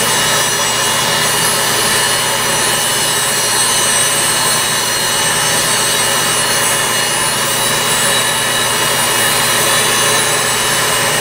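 Podiatry nail drill with a cone-shaped burr running at a steady high-pitched whine, with a grinding hiss as it files down a thickened toenail.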